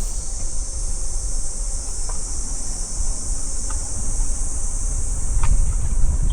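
A steady high-pitched chorus of insects over the continuous low rumble of a car driving on the road, with a few faint ticks.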